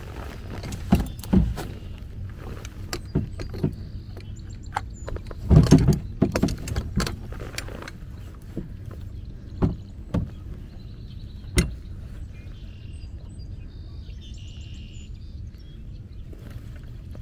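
Scattered knocks and thumps from a small folding boat and the gear in it, with a loud cluster about six seconds in, over a steady low rumble. Faint bird chirps come and go.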